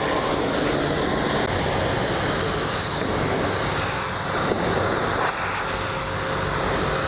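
Small electric pressure washer running, its motor humming under the steady hiss of the water jet as the foam is rinsed off a car.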